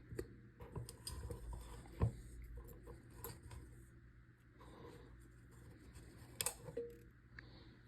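Small clicks, taps and light scraping from parts being handled by hand, with a sharper click about two seconds in and another about six and a half seconds in, over a faint steady hum.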